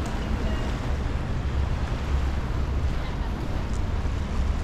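Wind buffeting the microphone outdoors: a low, uneven rumble that runs on steadily.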